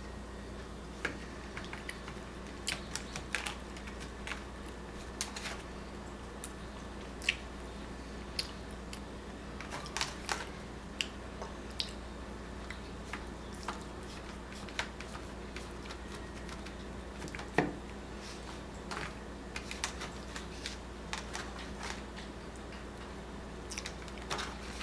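Someone eating a slice of cherry pie: chewing with irregular small clicks and taps, one sharper click about two thirds of the way in, over a steady low hum.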